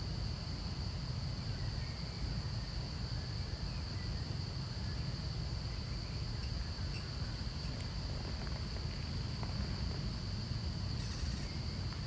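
Steady, high-pitched drone of insects in the forest, unbroken throughout, over a steady low rumble, with a few faint short chirps.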